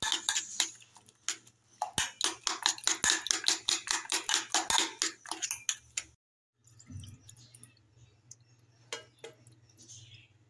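Egg and chopped bell pepper being whisked by hand in a stainless steel bowl: rapid clinking strokes of the utensil against the bowl, stopping abruptly about six seconds in. After that only a faint low hum with a few light taps.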